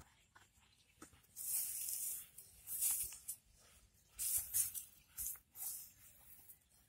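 Green plastic bottle rustling and scraping against hands and grass as it is handled and set down, in about five short hissy bursts.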